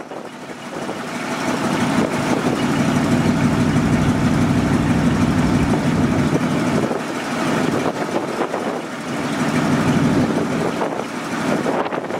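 The Ford eight-cylinder gas engine of a 1973 Ford F700 grain truck running. It grows louder over the first couple of seconds, eases off around seven to eight seconds in, then comes up again before dropping near the end.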